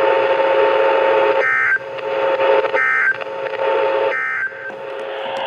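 Emergency Alert System SAME digital data tones from a radio receiver: three short, buzzy data bursts about 1.4 seconds apart, the end-of-message signal that closes a broadcast warning. They sound over a steady radio hiss with a faint hum.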